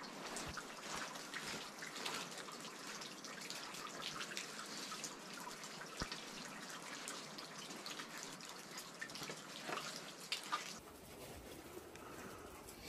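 Faint scuffing and crunching of footsteps on sandy ground and rock, with small clicks and rustles as a hiker scrambles to and into a hole in the bluff; a few sharper clicks come about ten seconds in, and it turns quieter near the end.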